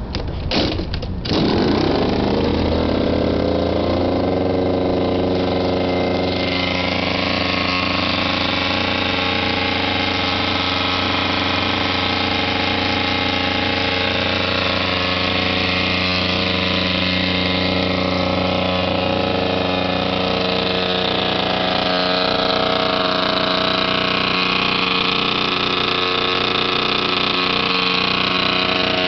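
Two-stroke Yamaha BWS scooter engine fitted with Stage6 racing parts, kick-started on its first start: a few kicks, it catches about a second and a half in, then keeps running at a steady idle.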